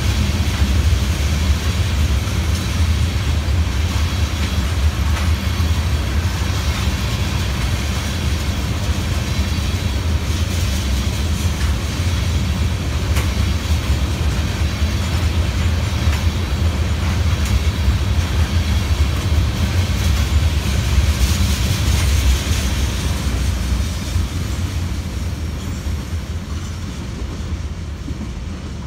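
Loaded tank cars of a freight train rolling past: a steady low rumble with wheels clicking over rail joints. The sound fades over the last few seconds as the end of the train moves away.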